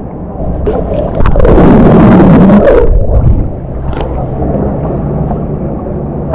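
Sea water sloshing and gurgling around an action camera held at the water's surface, muffled with a low rumble. It is loudest for about two seconds, starting just over a second in.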